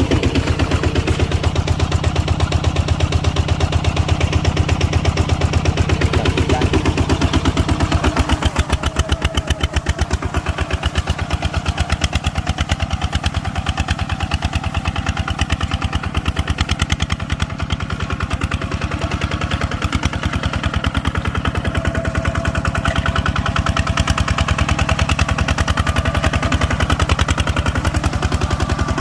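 Engine of a farm machine working in a rice harvest, running steadily with a rapid, even chugging beat; its sound becomes less deep about eight seconds in.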